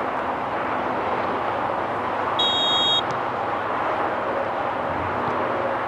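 One short, steady referee's whistle blast, about half a second long, a little over two seconds in, over steady open-air field noise.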